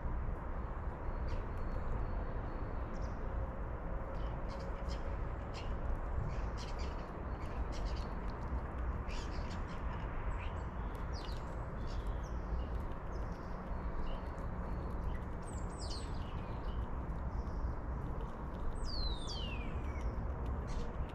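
Wild birds chirping and calling in short, scattered notes over a steady low background rumble. Near the end comes a clear falling whistle.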